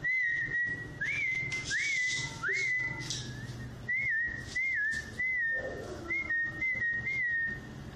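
A person whistling to call a cat: about ten short, clear whistled notes in a row, each sliding up and then settling back to a held pitch.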